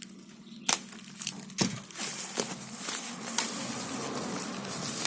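Packaging being handled while a printer is unboxed: plastic crinkling with a few sharp knocks, then continuous rustling from about two seconds in.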